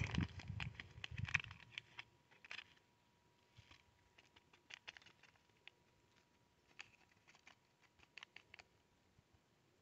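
Faint crinkling and ticking of a small paper seed packet as it is handled and its cherry tomato seeds are tipped out into a palm. The crackles come thickest in the first couple of seconds, then thin out to a few scattered ticks.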